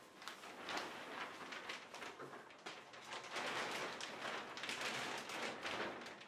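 A large sheet of black-and-white polyethylene panda film rustling and crinkling as it is lifted and handled, in uneven surges that are loudest in the second half.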